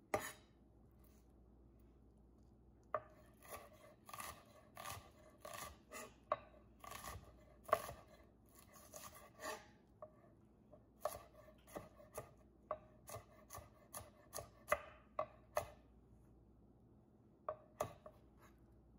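Chef's knife dicing an onion on a wooden cutting board: irregular knocks of the blade through the onion onto the board, about one or two a second, with a pause near the start and another near the end.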